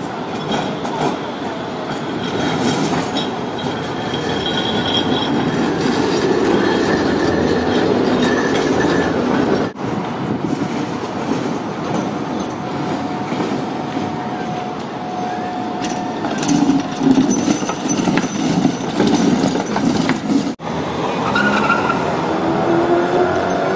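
City trams rolling along street tramway rails: a steady rumble of wheels on track with faint, thin wheel-squeal tones, cut off sharply twice, about ten and twenty seconds in.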